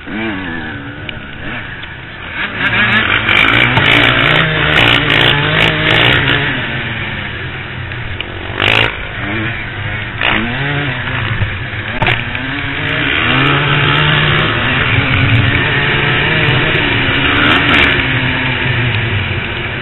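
Off-road motorcycle engines revving, the pitch rising and falling again and again as the throttle is worked. It gets louder about two and a half seconds in, and there are a couple of sharp knocks around the middle.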